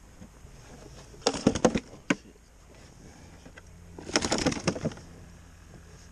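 Fishing tackle being handled over an open tackle bag: two short bursts of rattling clicks, one about a second and a half in and one about four seconds in, with a single click between them.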